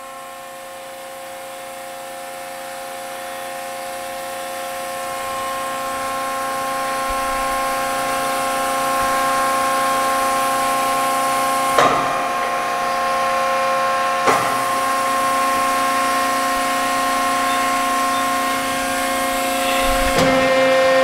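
Hydraulic pump of a 175-ton Accurpress CNC press brake running: a steady hum made of several pitched tones, growing louder over the first ten seconds and then holding level. Two short sharp clicks about twelve and fourteen seconds in.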